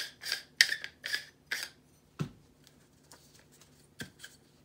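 Metal lightsaber pommel being unscrewed from the hilt: a run of short rasping scrapes, about three a second, as the threads and knurled grip turn in the hands. A single knock follows about two seconds in, and two light taps come near the end as the hilt is knocked against a palm.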